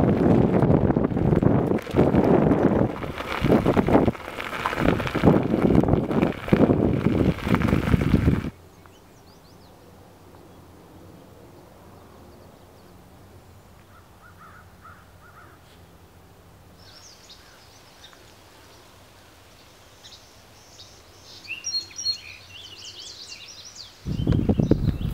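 Wind buffeting the microphone while a bicycle rides a gravel trail, loud for about eight seconds before cutting off suddenly. Then a quiet outdoor background with songbirds chirping, more often in the later part, until the riding noise returns near the end.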